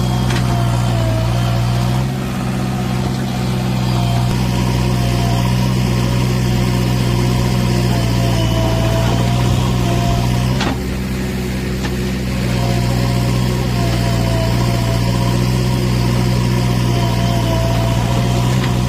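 JCB 3DX backhoe loader's diesel engine running steadily at an even, low speed. A fainter wavering higher tone rides above it, and there is one sharp click about eleven seconds in.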